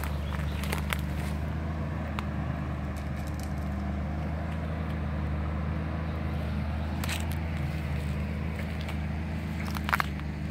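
A low, steady engine drone runs throughout, with a few sharp snaps or steps on the track, the loudest near the end.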